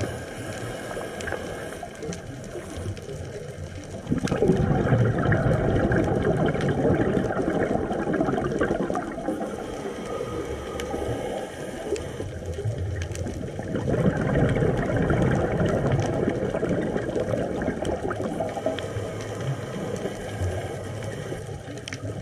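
Underwater sound of the sea: a steady watery rush with gurgling bubbles, getting clearly louder about four seconds in.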